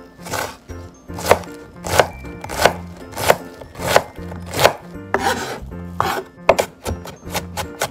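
Chef's knife mincing an onion on a cutting board: steady single cuts, about one every two-thirds of a second, then a short scraping shuffle as the pieces are gathered, then fast chopping at about four strokes a second near the end.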